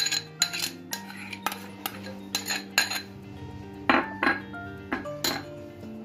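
Metal spoon clinking against a stainless steel mixing bowl while ghee is spooned onto flour: a quick, uneven series of about a dozen sharp clinks with a short ring after each. Soft background music runs underneath.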